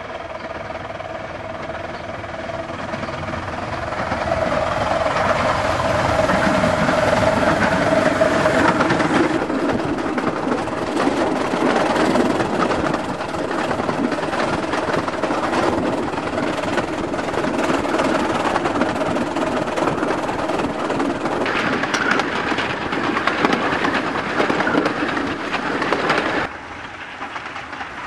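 Miniature steam locomotive and its train running, heard from on board, with wheels clicking over the rail joints and the engine working steadily. About a second and a half before the end the sound drops abruptly to a quieter, more distant train.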